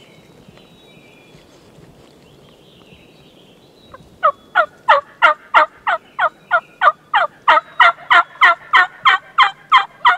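A long run of loud turkey yelps starting about four seconds in: some twenty notes at about three a second, each dropping in pitch.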